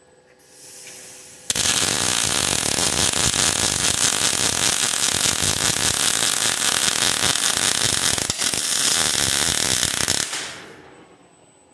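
KUKA welding robot's arc torch welding a steel truss: a short hiss, then the arc strikes about a second and a half in and crackles steadily with spatter for about nine seconds before stopping.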